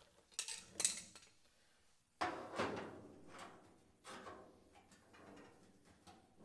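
Light metal clicks and knocks from steel tools being handled against a car's sheet-steel body panel. The loudest is a single clank about two seconds in that rings briefly, followed by a few smaller knocks.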